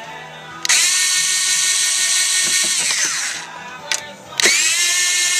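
Cordless screwdriver backing out case screws: a high motor whine for about two and a half seconds that winds down, a click, then a second run starting about four and a half seconds in.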